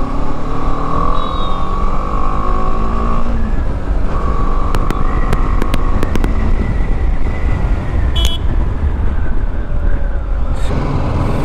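BMW G 310 GS's single-cylinder engine running as the bike rides through city traffic, with heavy wind rumble on the rider's microphone; the engine note shifts in pitch over the first few seconds. A short high beep sounds about eight seconds in.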